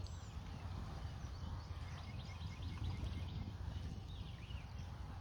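Wind buffeting the microphone with a steady low rumble, while small birds chirp in quick series of short high notes, busiest in the middle.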